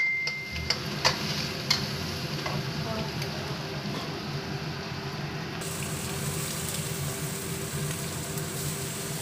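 Food sizzling in a hot wok as it is stir-fried with a spatula. It opens with a metallic ring fading out, and there are a couple of sharp clicks of the spatula on the pan in the first two seconds.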